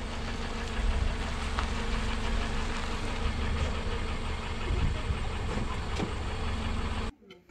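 A vehicle engine running steadily, with a constant low drone, cutting off abruptly near the end.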